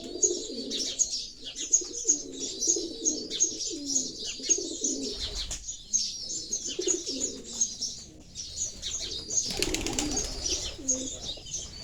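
Pigeons cooing in low, rolling calls, overlapping with sparrows chirping in quick, repeated high notes. There is a brief burst of rustling noise about ten seconds in.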